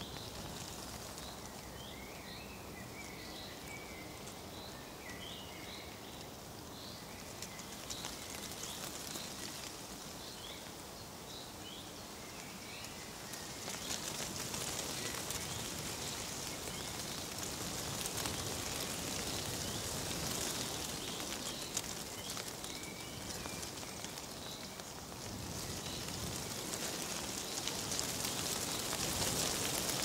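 Outdoor nature ambience: small birds chirping over a steady, crackly rustling hiss. The hiss gets louder about halfway through, and the chirps fade under it before returning briefly near the end.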